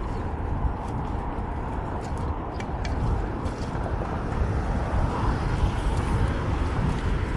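Wind rushing over an action camera's microphone while riding a fixed-gear bicycle in city traffic, with the steady noise of road traffic underneath. A few light clicks come about two and a half to three seconds in.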